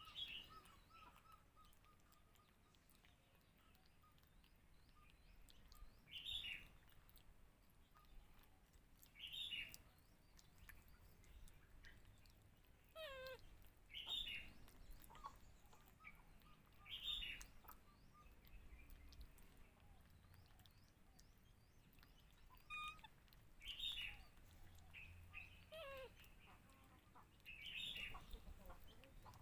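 Faint, short, high squeaking chirps from baby macaques, one every few seconds, some sliding down in pitch, as they eat hungrily from a plate.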